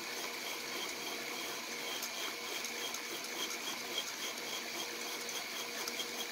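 Packard Precision 12-speed drill press running steadily, its chuck spinning a short length of 1/8-inch pipe while a hand file is held against it to turn it down to a smaller diameter. The motor sound is steady, with a faint steady whine and a light repeating tick.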